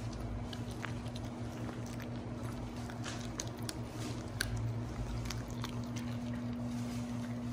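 A dog chewing a dried meat treat: irregular wet clicks and crunches of teeth and jaws. A steady low hum runs underneath.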